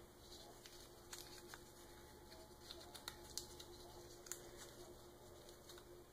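Faint rustling and scattered small ticks of a folded paper star being unfolded by hand, its strip of paper crinkling as it is pulled open.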